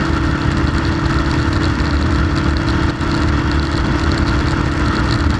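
Suzuki GS500's air-cooled parallel-twin engine running at a steady cruising speed, over a restless rumble of wind and road noise.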